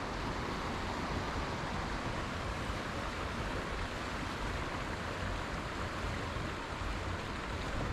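Steady rushing of a waterfall, an even wash of falling water.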